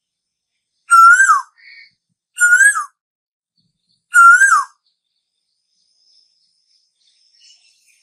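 Asian koel (tu hú) calling: three loud whistled calls about a second and a half apart, each holding a note, rising slightly, then dropping sharply at the end.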